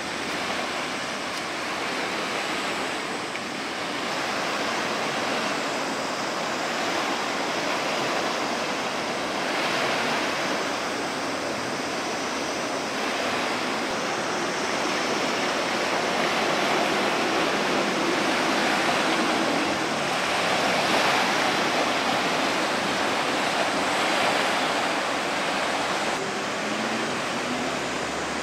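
Steady rush of moving water and breaking waves, swelling and easing every few seconds.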